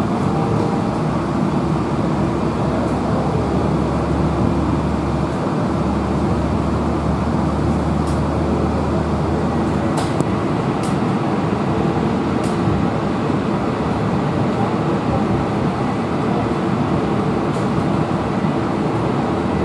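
Cabin noise inside a modern electric streetcar running on street track: a steady rumble with a low hum that drops away about halfway through, and a few faint clicks.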